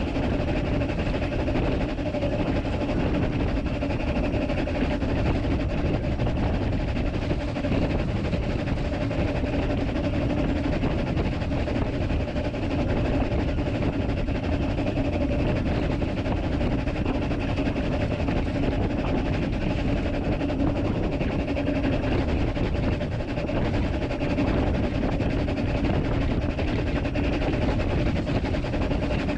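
Talyllyn Railway's narrow-gauge steam locomotive No.3 'Sir Haydn' running along the line, heard from its cab: a steady rumble of the engine working and wheels on rail, with a faint steady hum beneath.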